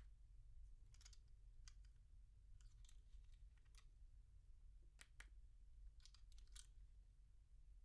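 Faint, irregular small clicks of an Audi car remote key fob being handled and its buttons pressed, over a low steady hum.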